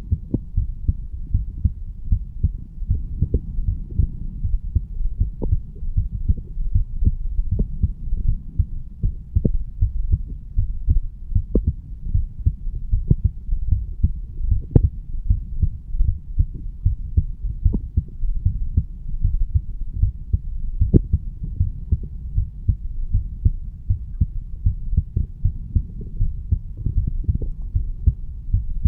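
A man's heartbeat picked up on the chest over the mitral (bicuspid) valve area: a steady run of repeating low thuds.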